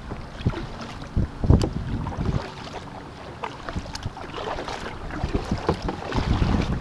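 Kayak paddle blades dipping and splashing in choppy water, stroke after stroke, with water slapping the hull. Wind buffets the microphone in gusts, more strongly near the end.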